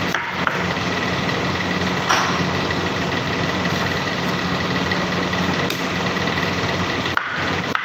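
Steady mechanical hum and hiss of kitchen machinery, with a faint high whine. A few short knocks of a knife cutting through fruit onto a wooden cutting board stand out over it.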